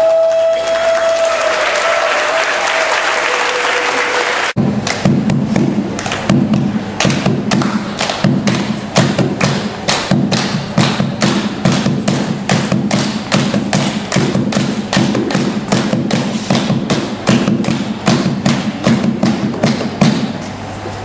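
A crowd clapping and cheering for the first four seconds or so, then after a sudden cut a hand drum played with the hands in a steady rhythm, about three beats a second, through the rest.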